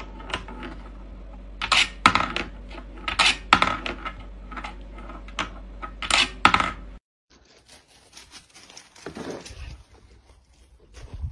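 Small metal ball clinking and rattling around a wooden-and-wire rolling-ball desk toy as a cat paws at it, in repeated bursts of ringing clatter, about six louder ones. The clatter stops abruptly about seven seconds in, leaving only faint scuffling sounds.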